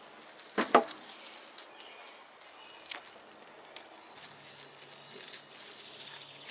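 Raw shrimp being peeled and handled: a short, loud crackle a little under a second in, then a sharp click and a few faint ticks.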